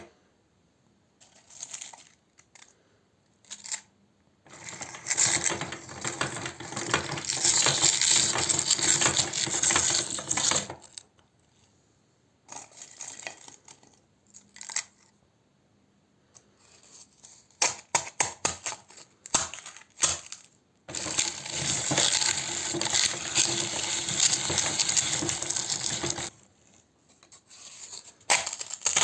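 Meat grinder crushing a crisp ice cream cone: two long stretches of dense crunching and crackling, with scattered clicks and knocks between them.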